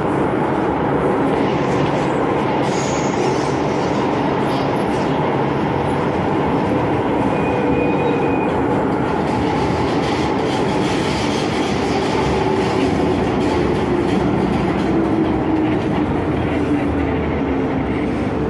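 Hong Kong MTR Island Line M-Train running between stations, heard from inside the car: a steady, loud rumble of wheels and running gear on the track. A faint low hum drifts slowly in pitch.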